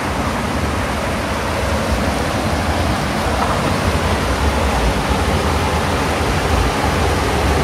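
Water rushing steadily through a small dam and tunnel water channel, a loud, even rush with no breaks.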